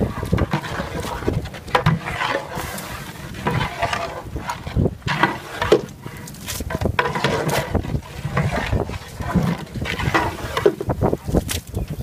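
Long metal spatula stirring a large metal cooking pot of wet vegetable masala, with irregular scrapes and clanks of metal against the pot.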